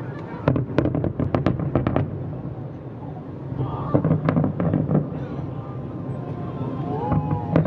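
Fireworks display with shells bursting in rapid volleys of bangs, two dense clusters in a few seconds, over a steady low rumble.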